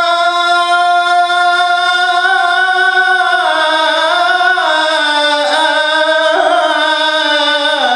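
A male Quran reciter holds one long melodic note on the drawn-out vowel of "rabbana", with no instruments. The note is steady at first, then from about halfway it is ornamented with wavering turns in pitch, and it dips lower near the end.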